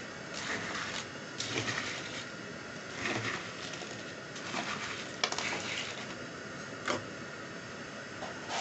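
Kitchenware being handled: a few short clinks and scrapes, the sharpest about five seconds in, over a steady hiss.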